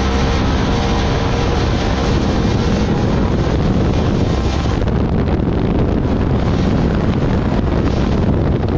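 Loud, steady wind buffeting on the microphone over an off-road machine's engine while riding along a trail.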